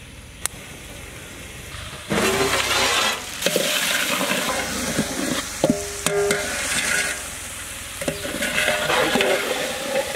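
Chicken pieces sizzling as they fry in a large metal pot, stirred with a long metal ladle that scrapes and clinks against the pot. The loud sizzling starts about two seconds in.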